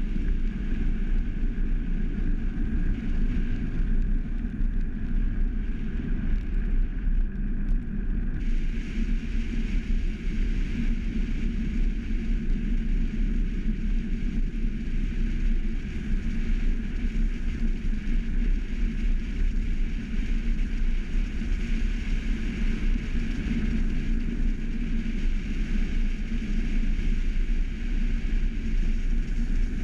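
Steady wind rush and tyre-on-asphalt rumble of a velomobile rolling along the road, picked up by a camera riding on the vehicle. The hiss gets brighter about eight seconds in.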